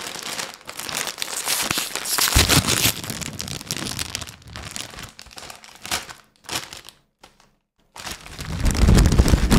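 Crinkling and rustling of a bag of pumpkin tortilla chips being handled and pulled open, close to the microphone. It stops briefly about seven seconds in, then comes back louder with a low rumble as the bag is pushed right up to the microphone.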